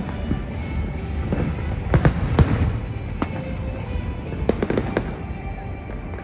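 Aerial fireworks bursting: sharp bangs in clusters about two seconds in and again about four and a half seconds in, over a continuous low rumble of further explosions.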